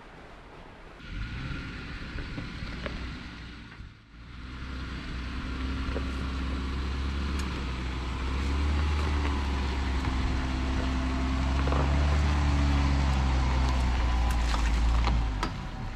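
Jeep Gladiator engine running under light throttle on a dirt trail, growing louder through the middle with its pitch rising and falling a little, then dropping away suddenly near the end.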